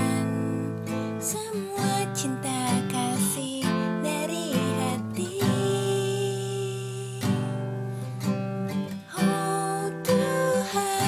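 Music led by a strummed acoustic guitar, with sustained notes changing every second or so.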